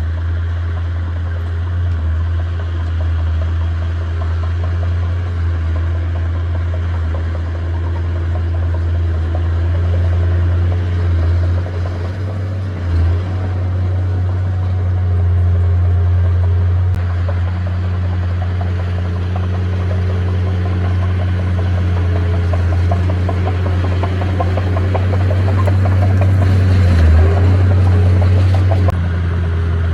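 Diesel engine of heavy earthmoving machinery running steadily with a deep drone, dipping briefly about twelve seconds in and again near the end.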